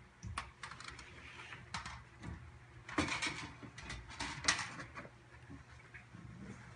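Irregular sharp clicks, taps and short rattles of a steel fish tape and cable being handled and pulled through, busiest in the middle.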